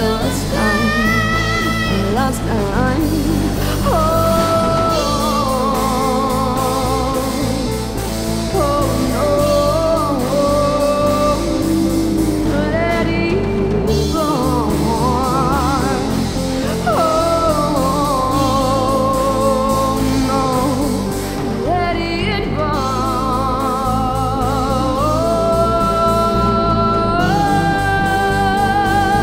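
A woman singing long held notes with vibrato over a rock band of drums, bass guitar and electric guitars.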